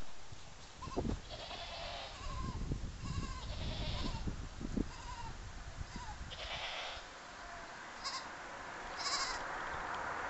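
A young wild goat kid bleating several times in short, high calls, the calls of a kid that has lost its herd. There is a low rumble on the microphone through the first half.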